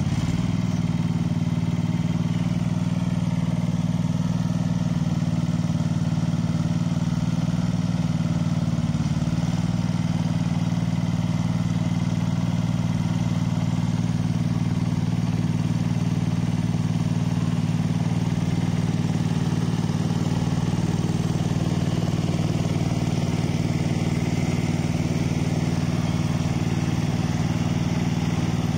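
Small air-cooled petrol engine of a self-propelled trencher machine running steadily at a constant speed, with no change in pace.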